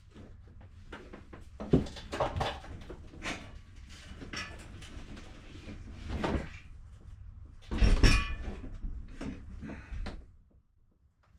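Irregular knocks, bangs and scraping clatter of items being shifted about in a cluttered storage shed while a table is pulled out, with the loudest bangs about two seconds in and near eight seconds; it dies away near the end.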